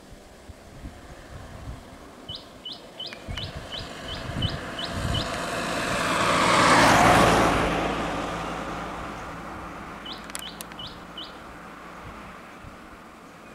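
A vehicle passes close by on the road, its noise swelling to a peak in the middle and then fading away. A bird calls in runs of short, quick, evenly repeated chirps, a long run before the vehicle passes and a shorter one after.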